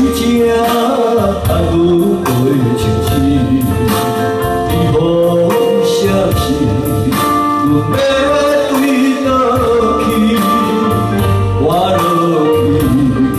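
A man singing into a microphone, with held notes that waver in pitch, over electronic keyboard accompaniment with a steady beat.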